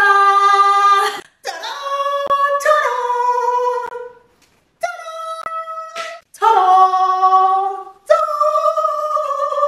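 A woman's voice singing unaccompanied in long held notes, phrase after phrase, with a short pause about four seconds in.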